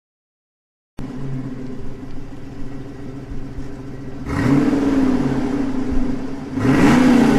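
Ford Mustang engine starting up in a new clip after a second of silence, idling steadily, then revved twice, the pitch rising and falling back each time.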